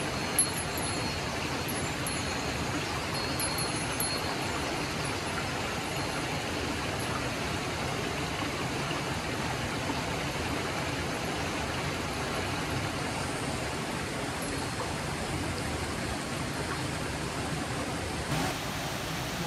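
A mountain river rushing steadily over rocks, with one sharp click about half a second in.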